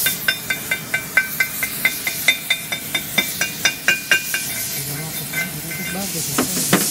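A chipping hammer striking a steel welding test plate in a quick, even run of ringing metallic taps, about five a second, that stops about four and a half seconds in; this is typical of knocking flux-cored (FCAW) slag off the weld between passes. Two sharp clicks follow near the end.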